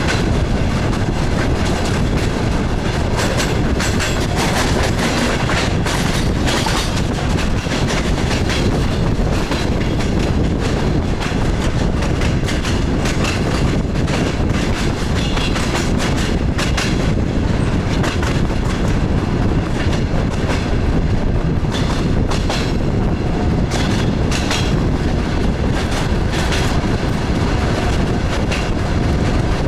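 DR1A diesel multiple unit running along the line: a steady rumble with its wheels clacking over rail joints at uneven intervals.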